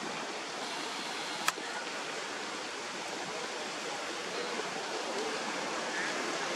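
Steady, even outdoor hiss with one sharp click about a second and a half in.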